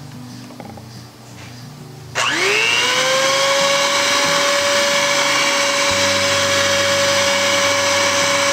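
Electric mixer switched on about two seconds in, its motor whine rising quickly to a steady pitch and running on as it mixes flour into cookie batter.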